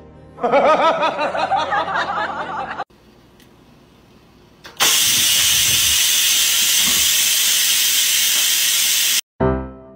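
A cat meowing in a long, wavering cry for about two seconds. Then, about five seconds in, an electric pressure rice cooker vents steam with a loud, steady hiss that cuts off abruptly near the end.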